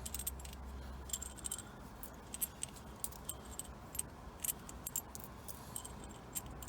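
Small metal clicks and clinks, irregular and sharp, as the small screws are worked out of an NRG steering wheel's decorative ring by hand with a tool.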